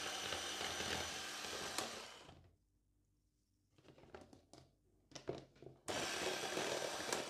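Braun electric hand mixer running, its twin beaters whipping heavy 33% cream toward the semi-whipped stage. The motor runs steadily for about two seconds and fades out. After a pause with a few short clicks it runs again near the end.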